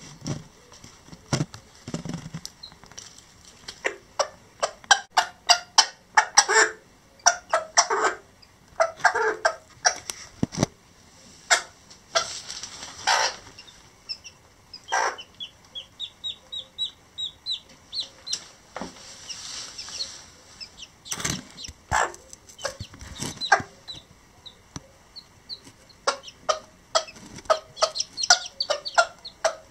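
Lavender Old English Game bantam hen clucking among her newly hatched chicks as they feed, with many short sharp clucks and pecking taps throughout. About halfway through comes a quick run of high chick peeps.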